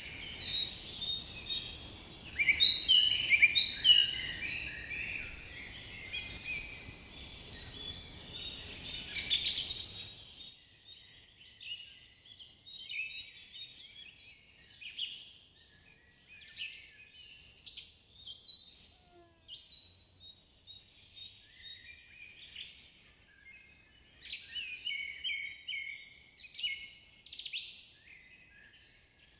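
Small birds chirping and trilling, many short high calls overlapping. A low rumble runs underneath at first and cuts off suddenly about ten seconds in, leaving the birdsong on its own.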